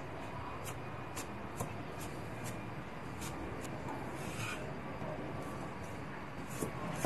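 A cleaver chopping pickled chilies on a wooden chopping board: a scattering of light knife taps on the wood, with a brief scrape about four and a half seconds in.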